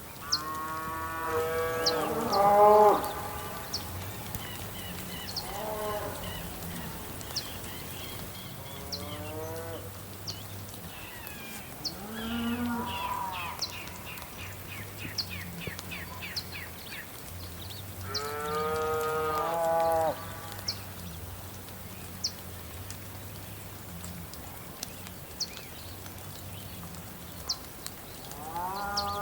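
Cows mooing again and again over steady rain, in long lowing calls; the loudest comes about three seconds in and another long one about two-thirds of the way through. A bird's rapid run of repeated high notes sounds in the middle, and sharp high ticks are scattered throughout.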